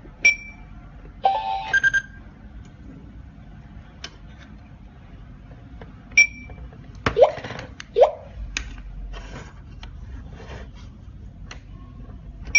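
Wireless home security alarm panel giving short high electronic beeps: one near the start, again about six seconds in, and again at the end. A brief multi-tone chirp follows the first beep, and there are scattered clicks and taps, with two louder short sounds around seven and eight seconds in.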